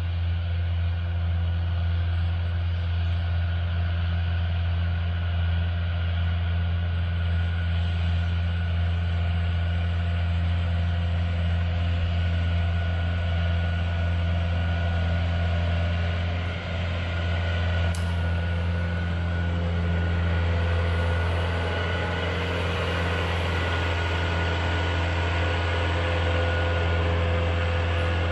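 Crop sprayer's engine running steadily under load, a constant low drone with no change in pitch.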